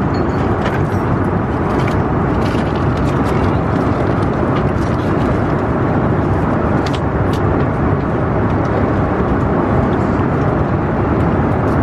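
Airliner cabin noise in flight: a steady, even rush with no change in level. A few faint clicks sound over it.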